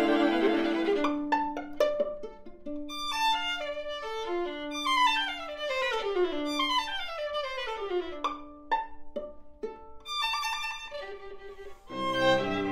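String quartet of two violins, viola and cello playing classical music: held bowed notes and a few plucked strikes at first, then a run of overlapping falling slides in the upper strings. Near the end the cello and the full ensemble come back in with low sustained notes.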